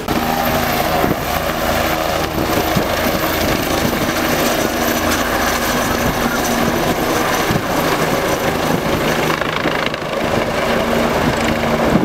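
Helicopter rotor and engine running steadily as it flies away, a little quieter about ten seconds in.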